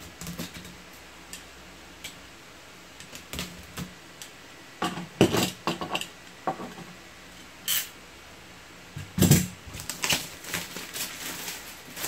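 Cardboard power-supply box being cut open with a utility knife and unpacked: scattered clicks, scrapes and knocks, with the loudest bursts about five seconds and nine seconds in.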